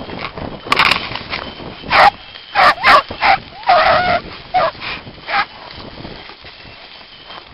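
Beagles baying on a rabbit's trail, the sign that the pack is in full chase: a run of about seven loud bays, one drawn out about four seconds in, which stop after about five and a half seconds.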